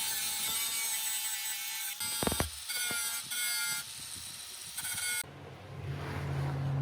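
A small electric motor whines steadily and cuts out about two seconds in. A few clicks and short bursts of whine follow, then a lower steady hum takes over near the end.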